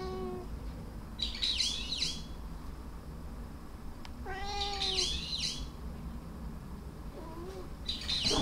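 A domestic cat meowing: one meow trails off at the start, a clear meow comes about four seconds in, and a couple of faint short mews follow near the end. These are sweet, attention-seeking meows.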